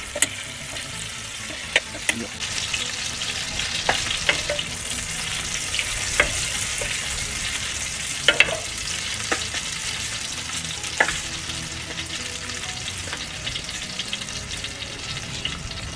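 Butter sizzling and foaming in hot oil in a frying pan: a steady hiss that grows a little louder after about two seconds, with scattered sharp pops and crackles.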